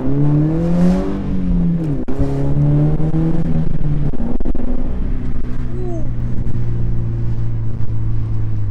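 Scion FR-S's 2.0-litre flat-four, fitted with a GReddy Re-Mark exhaust, pulling hard. The revs climb, fall with an upshift about two seconds in, climb again, then settle into a steady lower drone from about four seconds in.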